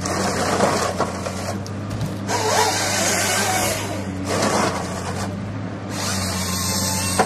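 Komatsu PC300LC-8 excavator-based harvester running steadily while its Pro700 harvester head feeds and cross-cuts a conifer stem into logs. The saw and feed noise comes in three loud bursts: at the start, in the middle and near the end.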